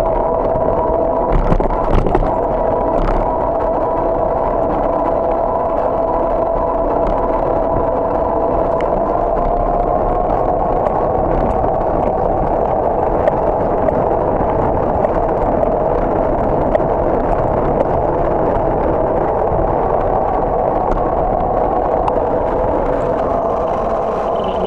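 Steady rumble and hiss of wind and road noise on a camera riding on a moving bicycle, with a steady whine that drifts slightly in pitch. A few sharp knocks come about two seconds in.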